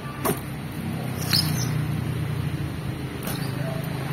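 Packing tape on a cardboard box being slit and pulled loose: a few sharp crackles and a short squeak about a second in, over a steady low hum.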